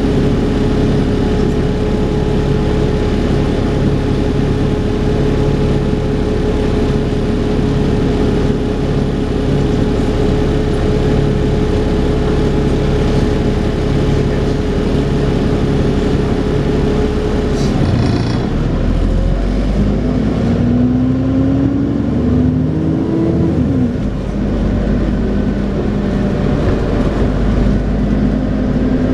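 Dennis Trident 2 double-decker bus running with a steady vacuum-cleaner-like whine, the 'hoover' sound, over its engine note. About two-thirds of the way through there is a click, the whine stops, and the engine note drops to a deep rumble. The pitch then rises for a few seconds as the bus pulls away and accelerates.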